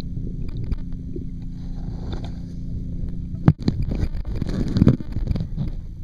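Muffled underwater sound picked up by a waterproof camera moving through the water: a steady low rumble and hum, a sharp knock about three and a half seconds in, then a few irregular sloshing surges.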